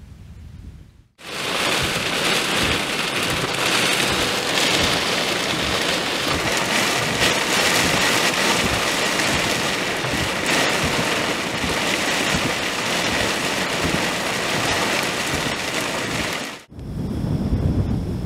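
Torrential wind-driven rain pouring down in a dense, steady hiss. It starts abruptly about a second in and stops abruptly near the end, giving way to wind buffeting the microphone.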